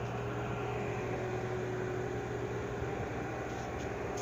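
Floating crane's machinery running with a steady, even drone and a constant low hum, unchanging throughout.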